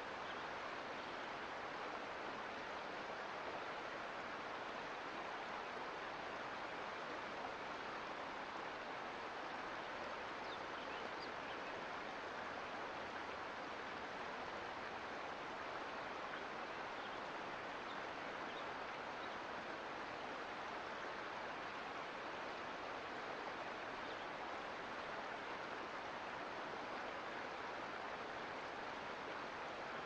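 Mountain creek flowing: a steady, even rush of water.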